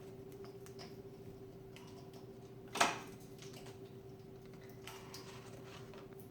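Cockatiels pecking at food on a paper plate: scattered small taps and rustles of beaks on paper, with one louder tap a little before the middle. A steady faint hum runs underneath.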